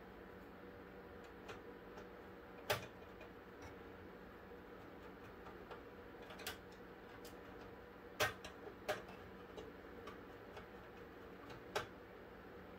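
Scattered sharp metallic clicks and taps, about six spread out, the loudest about three seconds and eight seconds in, as metal slot covers are fitted into a PC case's rear expansion slots and handled with a screwdriver. A faint steady hum runs underneath.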